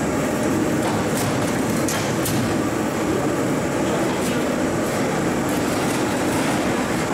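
Steady machinery noise, with a few short clicks and faint voices.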